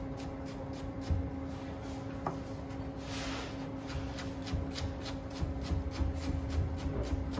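Chef's knife slicing chicory into thin strips on a plastic cutting board: quick, even strokes, about four a second, each blade tapping the board, over a steady low hum.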